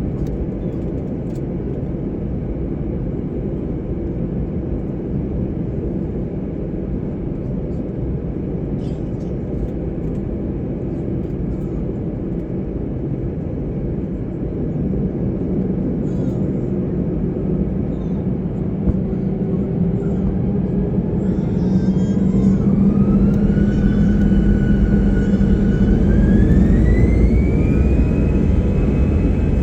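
Airliner cabin noise inside an Airbus A321-200: a steady rumble, then, from about two thirds of the way in, the CFM56-5B turbofans spool up, their whine rising in two steps with a short hold between as thrust is set for the takeoff run.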